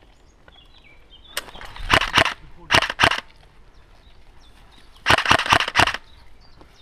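Airsoft M4-style rifle firing three bursts of rapid shots. The first comes about a second and a half in, a short one follows, and a longer burst comes near the end.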